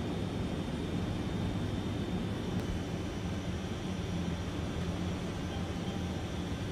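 A C-130 Hercules's four turboprop engines running in a steady, even drone, heard from inside the cockpit.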